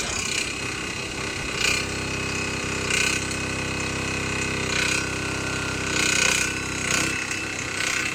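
PC08 mini excavator's small engine running steadily under load while the machine is worked off a truck bed, with several short bursts of scraping and hissing as the controls are jerked.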